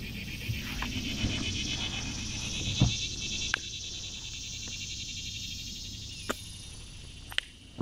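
A steady, high pulsing buzz of insects droning in the background, fading near the end. A few light clicks and knocks from gear being handled, the loudest about three seconds in.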